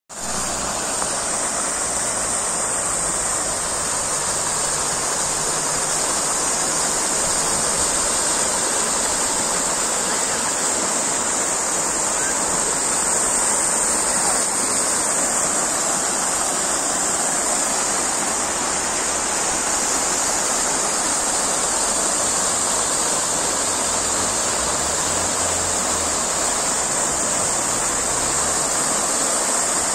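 Ornamental fountain's tall jets and small nozzles splashing steadily into the basin: a continuous hiss of falling water.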